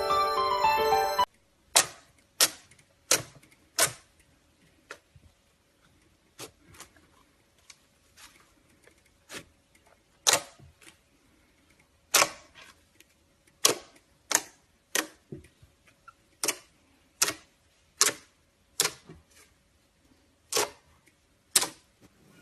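Music cuts off about a second in, then a series of short, sharp clicks and taps at irregular intervals, about twenty in all.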